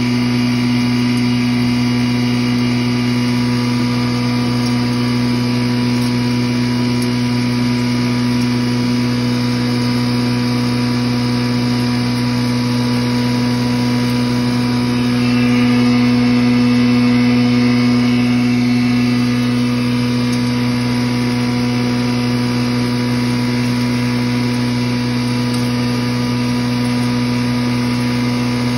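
Busa (chopped wheat straw) grinder machine running with a loud, steady hum as dry straw is fed into its hopper, the grinding noise swelling slightly about halfway through.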